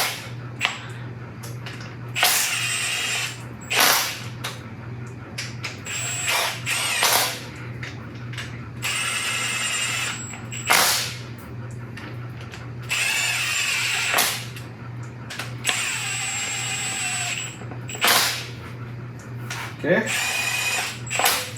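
Impact wrench running cylinder head bolts down on an LS V8 in about ten short trigger bursts, one bolt after another in the tightening sequence, over a steady low hum.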